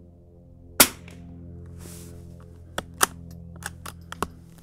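A single .22 LR shot from a 1941 Marlin 81 DL bolt-action rifle. About two seconds later comes a quick run of metallic clicks as its stiff bolt is worked to open, eject and chamber the next round.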